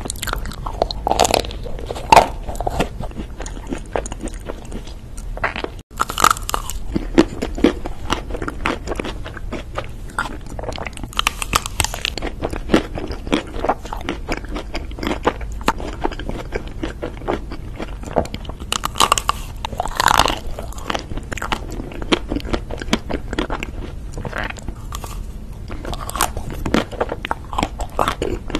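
Close-miked eating sounds: bites cracking through the chocolate shell of a chocolate-coated ice cream bar, then crunchy, crackly chewing with repeated bites.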